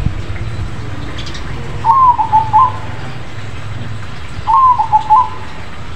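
Crossbred zebra dove (perkutut) cooing two phrases about two and a half seconds apart, each a higher opening note followed by a quick run of shorter, lower notes.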